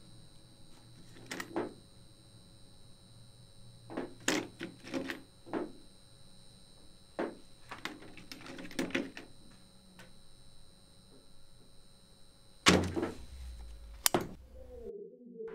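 Irregular knocks, clicks and light clatter of small objects or tools being handled on a hard surface, some coming in quick clusters. A louder knock comes near the end, followed by a sharp click, and then the sound cuts off suddenly.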